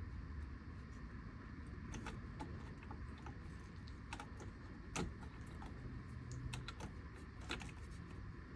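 Scattered light clicks and taps at irregular intervals, a slightly louder click about five seconds in, from small parts being handled during a steering wheel installation, over a low steady hum.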